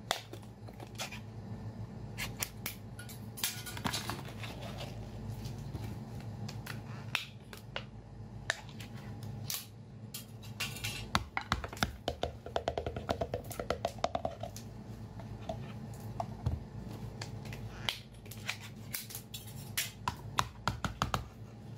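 A clear plastic jar of shellfish in sauce is twisted open and handled: the plastic crackles and clicks. In the second half comes a run of rapid clicks as the wet shells are tipped out onto a tray.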